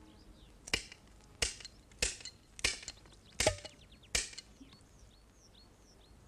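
Six sharp, dry knocks that sound like wood, roughly two-thirds of a second apart and stopping about four seconds in, with faint high chirps behind them.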